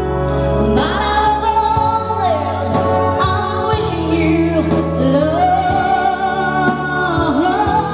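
A woman singing through a microphone with long held notes and slides in pitch, over Roland XP-80 synthesizer backing with sustained bass notes.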